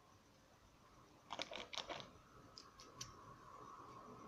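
A quick run of light clicks and taps from small tools or parts handled on a watchmaker's bench, followed by three single clicks.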